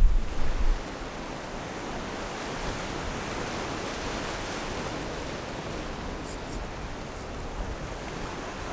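Surf washing and breaking against the rocks of a jetty, a steady rushing noise. Wind buffets the microphone with a low rumble for the first second.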